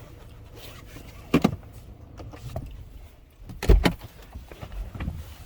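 Vehicle door opened and shut: a short clunk about a second in, then a heavy low thump, the loudest sound, near the middle, with small rustling and handling noises around them.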